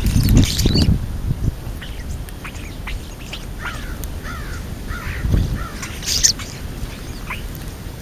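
A flock of European starlings feeding close to the microphone. Wingbeats flutter in the first second and again about five seconds in, with short downward-sliding calls and chirps in between.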